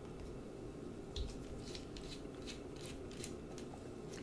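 Light metallic ticks, two or three a second, as a small Torx precision screwdriver turns a screw out of a folding knife's handle, with a soft knock about a second in.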